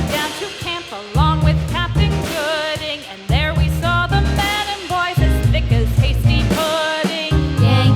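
Background pop song with a singing voice over bass and drums.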